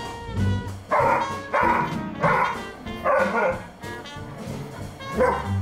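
A dog barking about five short, sharp times, its play barks going unanswered, over background music.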